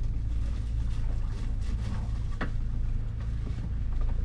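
A steady low mechanical hum, with a few faint knocks and one sharp click about two and a half seconds in.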